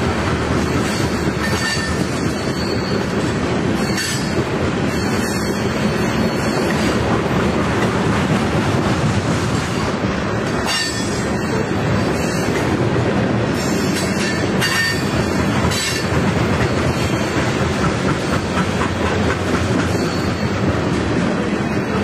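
Covered hopper cars of a freight grain train rolling past: a steady rumble of steel wheels on rail, with clicks over the rail joints and brief high wheel squeals.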